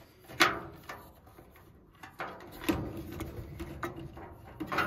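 Handling noise from a plastic Nest power connector and its wires being turned over by hand: a sharp click about half a second in, then softer clicks and rustling. A steady hum comes in about halfway through.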